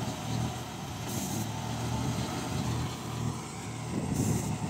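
M35A2 6x6 cargo truck, loaded with sugarcane, running steadily under load as it crawls through soft plowed field: a low, even engine drone. Two brief hisses, one about a second in and one near the end.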